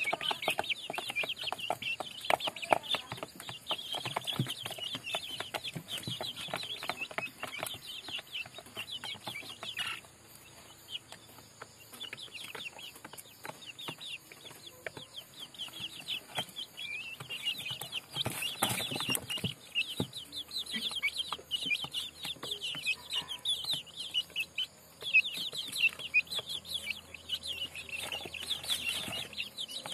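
Young native (nadan) chickens peeping and clucking continuously in quick, high chirps, with frequent sharp taps mixed in. The chirping eases off briefly about a third of the way through, then picks up again, with a short noisy rustle about two-thirds through.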